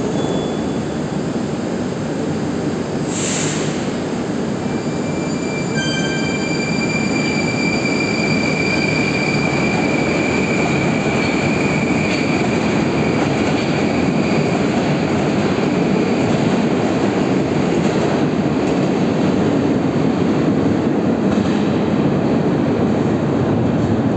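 Moscow Metro train pulling out of the station. There is a short hiss about three seconds in, then an electric whine from the drive as it gets under way, over a rumble of wheels on rails that grows louder as the cars roll past and into the tunnel.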